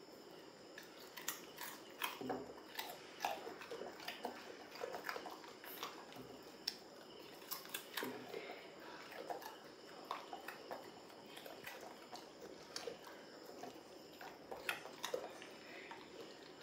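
A Labrador retriever chewing and crunching food: irregular, crisp bites and crunches, several a second in spells, with short pauses between mouthfuls.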